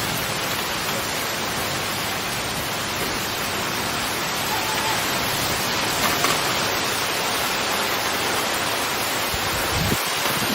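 Heavy thunderstorm rain pouring down, a steady dense hiss.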